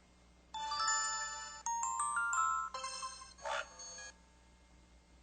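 LG-KV5900 mobile phone playing one of its built-in sound effects through its speaker: a short electronic jingle of bright chiming notes, starting about half a second in, followed by a few softer tones that stop about four seconds in.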